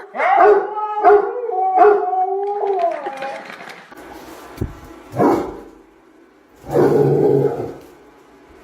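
A dog howling in a run of short, wavering cries for about three seconds. These give way to quieter noises, with a short knock and then a rough, noisy burst about seven seconds in.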